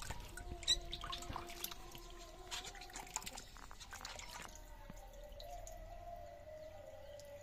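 Hands washing cut fish in a steel bowl of water: splashing, sloshing and dripping with small clinks against the metal, dying away after about four and a half seconds. A faint, steady, wavering tone is heard in the background after that.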